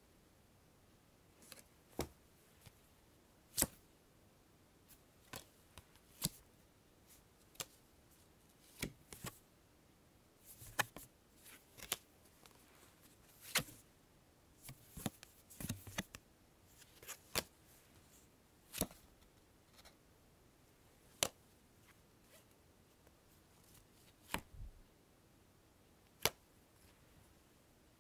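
Playing cards being drawn from a deck: short, sharp card snaps and slaps at irregular intervals, some coming in quick clusters, with quiet between them.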